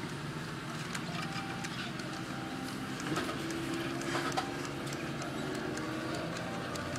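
Car engine idling with a steady low hum, heard from inside the cabin, with a few light clicks and rustles from a paper bag being handled.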